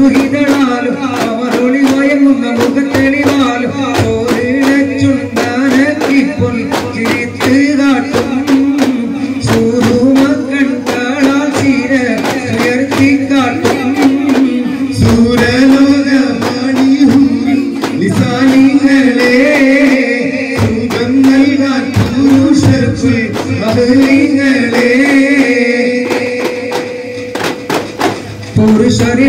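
Duff muttu: many daf frame drums beaten together in a fast, even rhythm under a sung devotional melody. The level dips briefly near the end before the drumming and singing come back in.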